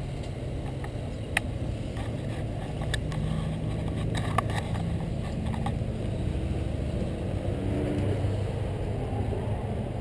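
Steady low rumble of motor traffic in a parking lot beside a busy road, with engine hum swelling and fading as vehicles move. Two light clicks of the bicycle being handled.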